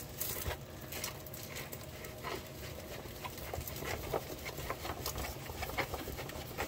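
A rolled diamond-painting canvas being handled and rolled the other way: scattered light crinkles, rustles and small taps.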